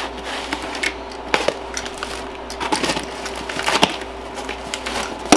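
Cardboard and plastic packaging being handled and opened: scattered crackles, rustles and light knocks, the sharpest one near the end, over a faint steady hum.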